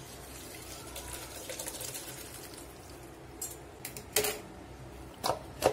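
Cooking water and boiled macaroni poured from a steel pot into a plastic colander, splashing and draining for the first couple of seconds. This is followed by a few sharp knocks, the loudest about four seconds in.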